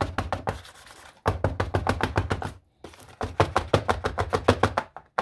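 A foil-lined box of freshly poured chocolate rapped rapidly against a kitchen countertop, about seven knocks a second in several runs with short pauses, to settle and level the chocolate.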